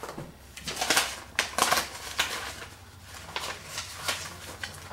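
Papers and photographs rustling and crinkling as they are leafed through by hand, in uneven spurts of handling noise, loudest between about one and two and a half seconds in.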